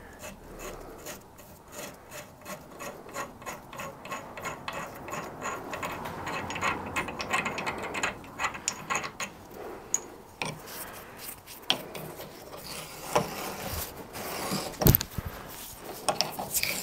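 Threaded spindle of an old steam waggon valve being turned in its worn cast-iron body, metal grating on metal in quick repeated strokes. Near the end come several sharper clicks and knocks as an adjustable spanner goes onto the hex at the top and turns it.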